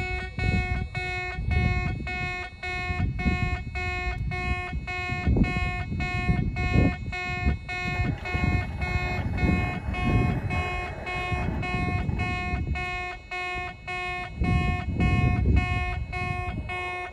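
Old-style railway level-crossing warning sounder in an in-station crossing, sounding a buzzing tone that pulses rapidly and evenly without a break, a crossing sound that has survived from the Showa era. Wind gusts rumble on the microphone underneath.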